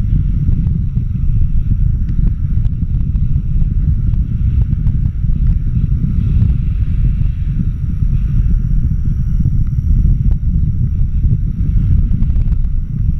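Wind from a paraglider's flight buffeting an action camera's microphone: a loud, steady low rumble.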